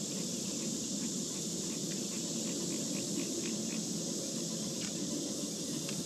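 Steady evening insect chorus, a high, even drone, with faint scattered ticks over a low background rumble.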